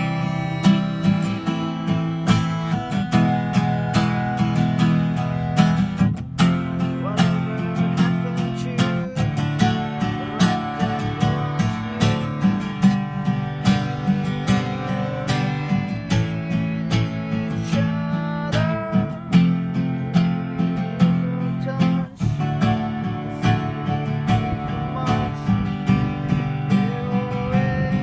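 Music of a strummed and picked acoustic guitar, playing continuously with a regular beat.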